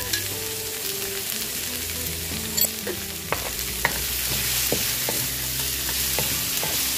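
Sliced bell peppers and onion sizzling in hot oil in a wok as they are stir-fried, with a wooden spatula scraping and knocking against the pan several times.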